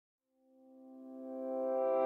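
Background music fading in from silence: a held chord of steady tones that grows louder.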